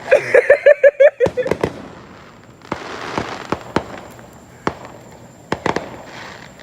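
Consumer fireworks going off: a quick run of warbling pulses in the first second, then scattered sharp pops and crackles. There is a short hiss about three seconds in.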